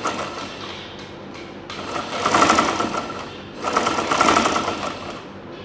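Sewing machine stitching in two short runs of about a second and a half each, with a pause between. The bobbin case is deliberately left not seated properly, which makes the thread knot and bunch up under the fabric.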